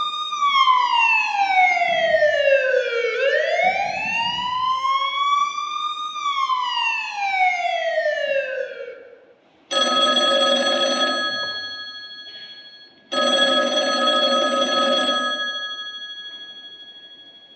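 An emergency siren wailing slowly: its pitch falls and rises over about three seconds each way, then fades out. After that, a telephone rings twice, each ring lasting a couple of seconds and fading away.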